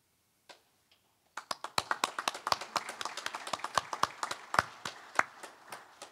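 Small audience applauding: a couple of single claps, then a handful of people clapping for about four seconds, the separate claps still distinct, thinning out near the end.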